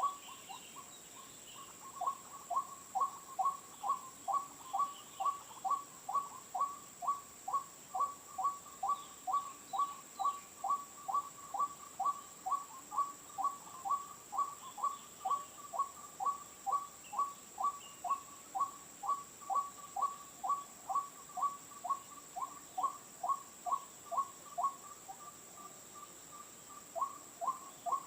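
White-breasted waterhen calling: a long, monotonous run of short croaking notes that slide downward, about two a second. The run pauses briefly near the start and again near the end. A steady high whine runs underneath.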